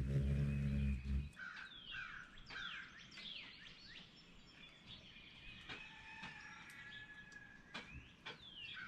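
Male ruby-throated hummingbird's wings humming as it hovers close by, stopping about a second in when it perches at the feeder. After that, other birds chirp in the background with quick falling notes, and there are a few small clicks.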